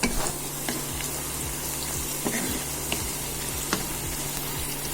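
Browned onions and ground spices sizzling steadily in hot oil in a pan, with a few sharp clicks of a spatula against the pan as they are stirred.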